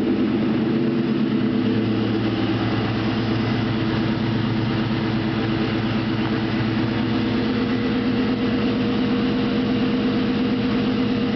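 2001 Ford Mustang GT's 4.6-litre V8 idling steadily with a rapid, even knock from the bottom end, most likely a spun rod bearing.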